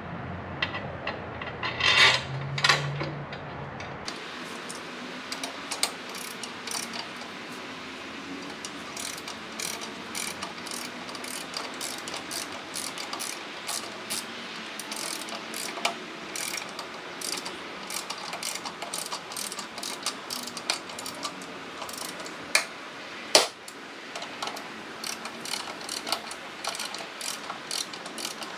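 Hand socket ratchet clicking in quick runs of strokes as bolts are turned into a motorcycle's rear bracket. A couple of louder knocks come about two seconds in, and one sharp, louder click about three-quarters of the way through.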